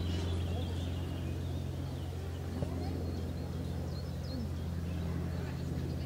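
Steady low hum with faint bird chirps and distant voices over it, and one brief faint knock about two and a half seconds in.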